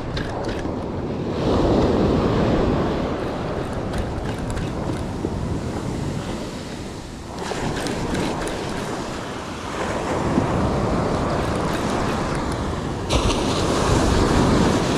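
Ocean surf breaking on a beach, the wash swelling and easing three times, with wind on the microphone.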